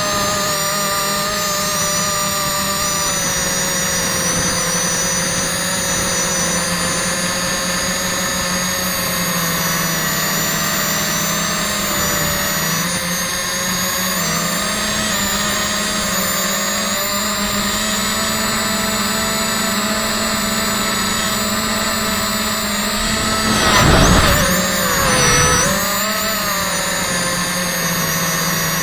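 Quadcopter's electric motors and propellers whining steadily in flight, the pitch drifting up and down with the throttle. About 24 seconds in the sound surges louder twice as the pitch dips and climbs again.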